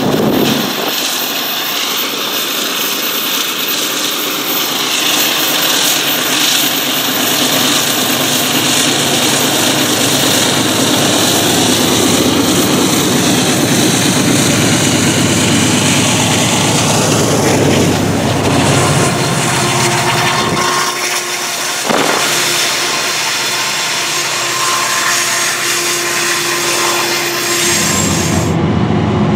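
A freight train's diesel-electric locomotives passing close beneath, engines running loud over a steady rolling noise, then the train's cars rolling by. Near the end the sound switches abruptly to another locomotive.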